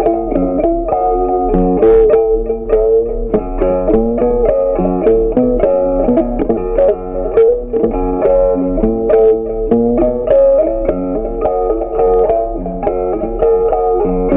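Background instrumental music: a melody of plucked notes that start sharply and die away, over a steady low hum.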